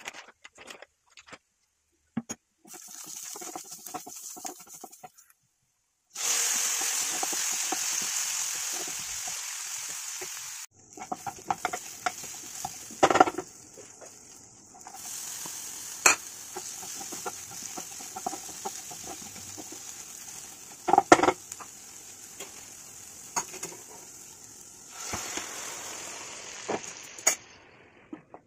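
Onion, tomato and spice masala frying and sizzling in a nonstick pan, in several stretches broken by short silent gaps. A wooden spatula stirs it and knocks sharply against the pan now and then.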